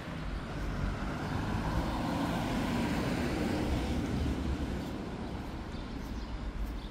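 A car driving past on a wet street, its tyre hiss and engine rumble swelling from about a second in and fading away again.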